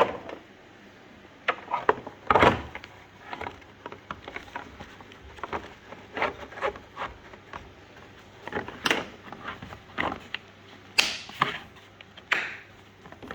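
Irregular clicks and knocks of hand tools and small metal and plastic engine parts being handled during diesel injector work, with a few louder knocks about two and a half seconds in and near the end.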